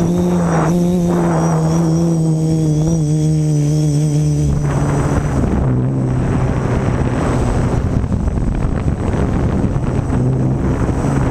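Quadcopter's electric motors and propellers whining close to the camera as it flies. The hum drops in pitch about four and a half seconds in and turns rougher and rushing, then steadies again near the end.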